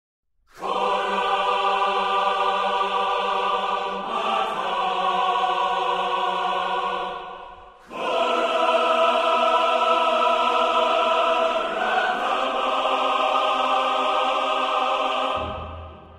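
Soundtrack music: a choir singing long held chords that change about every four seconds, fading out near the end.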